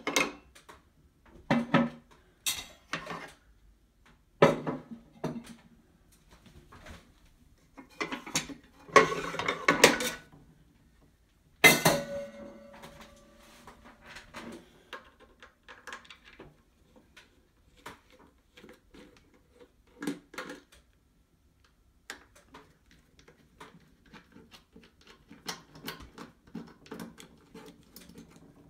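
Metal parts of an espresso machine clattering and knocking as the portafilter is unlocked and lifted off and the drip tray is pulled out. The loudest is a metallic clang about twelve seconds in that rings on briefly. After it come fainter, scattered clicks and taps of parts and tools being handled.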